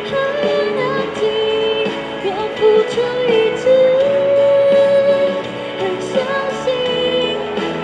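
Slow pop ballad music: a long-held melody line that glides between notes over a soft, steady accompaniment.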